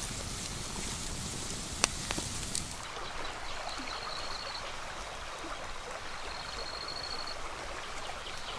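Wood campfire crackling, with a sharp pop a little under two seconds in, then an even rush of flowing river water. A thin, high, steady trill sounds twice over the water.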